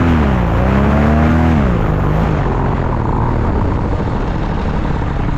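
Paramotor engine throttled down on landing: its pitch drops, picks up briefly, then falls away about two seconds in. A steady rushing noise and the pilot's footsteps on dry grass follow as he runs out the touchdown.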